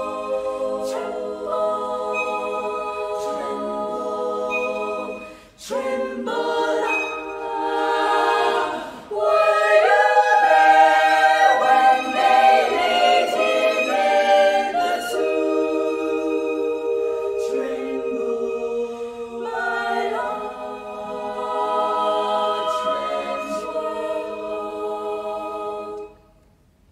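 Girls' choir singing in close harmony with a violin playing alongside, with held chords and brief breaths between phrases. The singing stops abruptly near the end.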